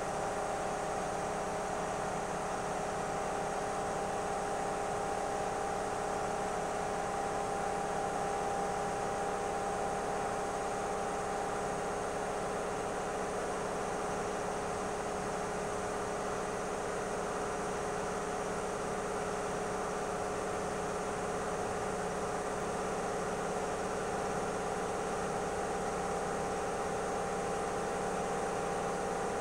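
Steady machine hum with several held tones, unchanging throughout.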